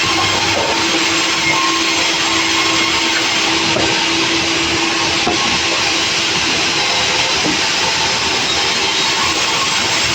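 Sawmill saw machinery running steadily: a loud, even mechanical noise with a constant hum.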